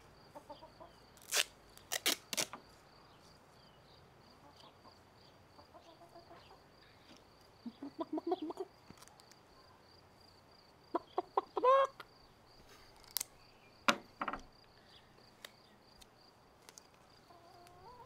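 Domestic hens clucking in short bursts now and then, with a few sharp clicks in between.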